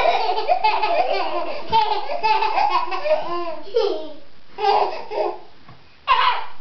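A baby and a young child laughing and giggling: a run of quick, bubbling laughs for about three seconds, then separate high, gliding laughs, the loudest near the end.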